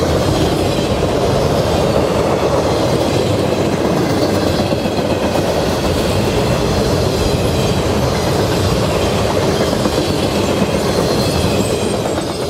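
Railroad flatcars loaded with trucks and trailers rolling past on the rails, a steady loud rumble of steel wheels on track.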